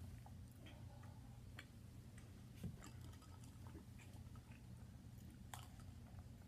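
Near silence: a steady low room hum with a few faint scattered clicks and one soft thump about two and a half seconds in.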